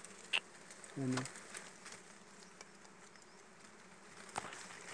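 Honeybees buzzing steadily around their nest, a faint continuous hum, with a brief human voice about a second in.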